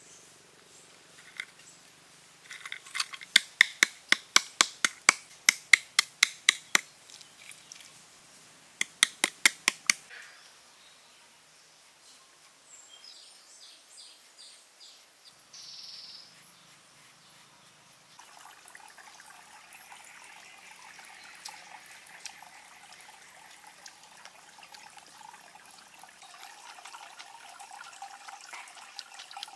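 Lumps of charcoal being crushed: a run of sharp knocks, about three a second, for some four seconds, then a shorter run a few seconds later. In the second half a soft, steady rushing sound.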